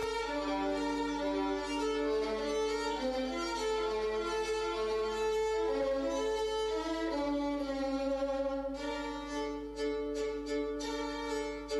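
Violin music from a dance performance video: several sustained bowed notes layered over one another, with shorter, sharper strokes from about nine seconds in.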